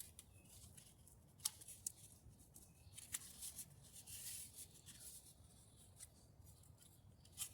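Near silence with a few faint clicks and a soft rustle of hands handling and pressing a glued plastic part into place.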